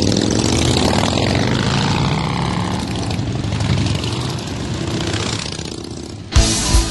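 Engines of a group of motorcycles, Harley-Davidsons among them, running as the bikes ride slowly past. The engine sound gradually fades, and rock music with a heavy beat cuts in suddenly near the end.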